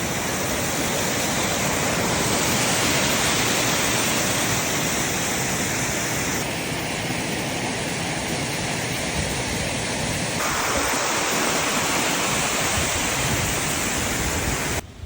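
Njupeskär waterfall, a 93-metre fall with a 70-metre free drop, rushing as a steady, dense roar of falling water. The sound changes abruptly about six and ten seconds in, and it cuts off sharply just before the end.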